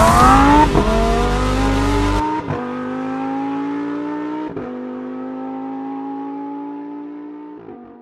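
Lamborghini Huracán's V10 accelerating hard through the gears, the pitch climbing and then dropping at each of four upshifts. A little after two seconds the full, loud engine sound suddenly thins to a cleaner, fainter tone, which fades out toward the end.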